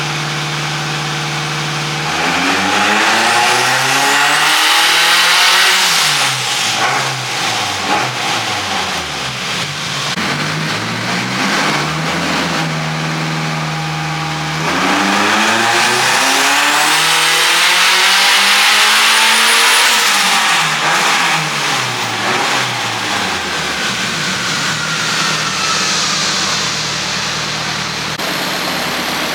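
Turbocharged Honda K24 engine in an S2000 making two hard pulls: from idle its pitch climbs for several seconds to high rpm and drops back, about 2 s and 15 s in, settling to idle between and after. A faint high whistle rises with each pull.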